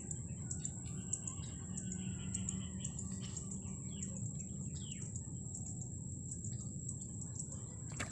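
Birds chirping and calling in short notes and brief gliding whistles, over a steady high-pitched whine and a low rumble.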